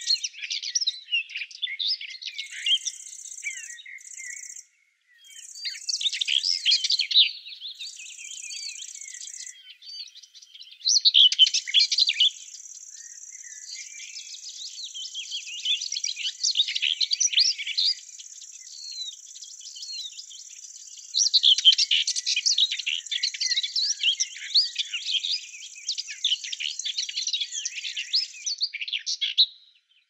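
Several small songbirds chirping and twittering in quick, busy phrases, with a steady high buzz like insects that comes and goes in short blocks at first, then holds through most of the second half.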